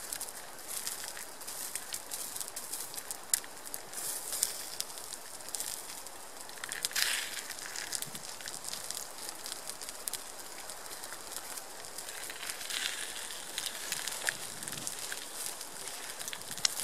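Spam, bacon grill and eggs sizzling in a frying pan over a campfire: a steady high hiss with scattered crackling pops.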